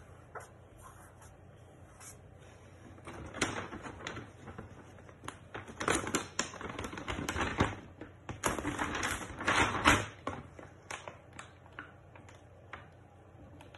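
Paper release liner crackling as it is peeled from an adhesive-backed sheet, with hands rubbing and pressing the sheet flat. It comes in irregular bursts with sharp clicks from about three seconds in to about ten seconds, then only a few small ticks.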